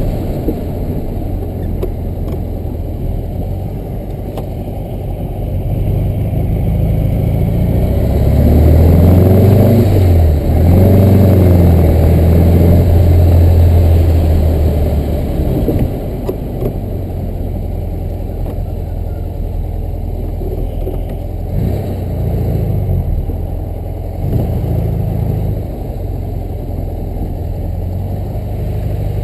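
1965 VW Beetle's air-cooled flat-four engine running. It revs up about eight seconds in, dips briefly near ten seconds, holds high until about fifteen seconds, then drops back to a lower steady note.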